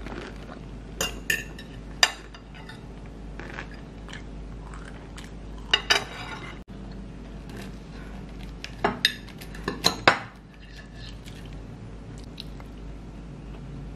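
A fork clinking and scraping against a plate while cutting and lifting pieces of waffle topped with ice cream. The sharp clinks come in small clusters, and the loudest run falls around nine to ten seconds in.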